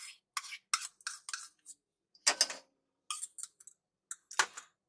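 Steel spoon scraping and tapping against a steel bowl and a metal kadhai as ghee is spooned into the pan: a string of short clinks and scrapes with silent gaps, the loudest about two and a half seconds in and again near the end.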